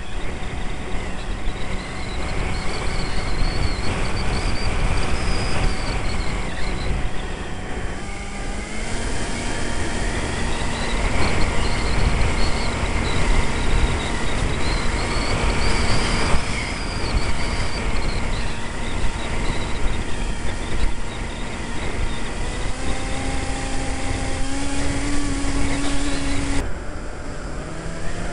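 Electric pusher motor of a Multiplex EasyStar RC plane heard from its onboard camera, a steady whine that steps up in pitch about eight seconds in and again near the end, over heavy wind rush on the microphone.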